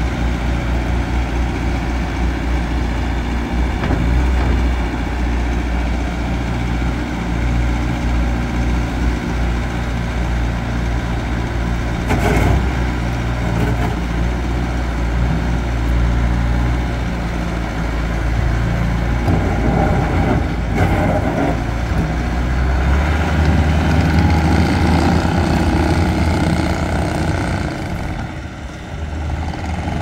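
Bobcat T595 tracked skid steer's diesel engine running steadily while the loader is worked, with two short knocks, about twelve and twenty-one seconds in. The engine note changes and grows stronger in the last third as the machine drives off.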